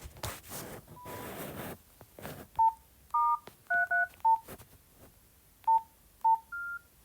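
Nokia 113 keypad tones: a series of short electronic beeps as buttons are pressed, some of them two-tone dialing tones, ending with a slightly higher beep as the keypad is locked. Rustling handling noise comes before the beeps.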